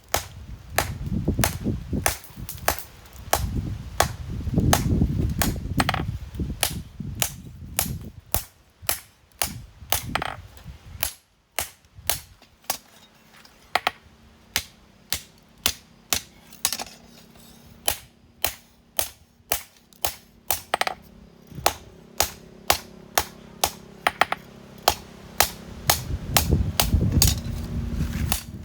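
Hammer forging steel on an anvil: a long, steady run of sharp metallic blows, about two a second. A low rumble runs under the blows for the first several seconds, and a low steady hum comes in about two-thirds of the way through.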